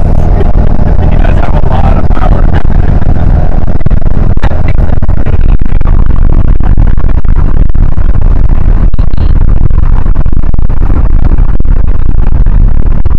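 Wind rushing over a microphone held at the window of a turbocharged VW Beetle driving at speed, with engine and road noise underneath. The sound is loud, steady and distorted.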